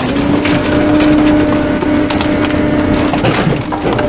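Rear-loader garbage truck's engine revved up and held steady to drive the packer, a level hum, with scattered sharp cracks and creaks of wood and upholstered furniture being pressed in the hopper.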